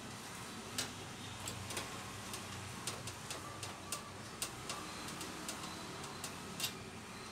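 Light, irregular clicks and taps of cables and plugs being handled at the back of a desktop PC case, a few each second.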